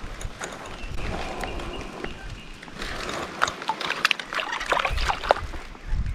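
A hooked fish splashing at the surface of shallow water as it is brought in, a run of short splashes that come thickest in the second half.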